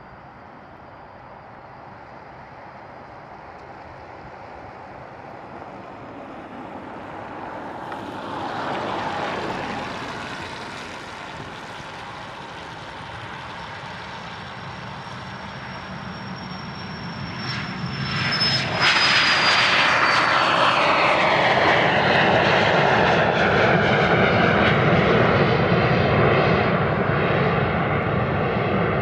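Cessna 525B CitationJet business jet on its takeoff run: the whine and rush of its twin turbofans grow steadily louder, swell briefly about a third of the way in, then jump to a loud roar as it passes close, its high whine dropping in pitch, and stay loud afterwards.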